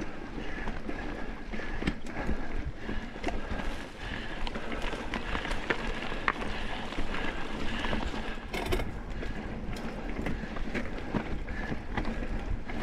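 Mountain bike being ridden along a dirt singletrack trail: tyre noise on the ground with frequent clicks and rattles from the bike, and wind on the microphone.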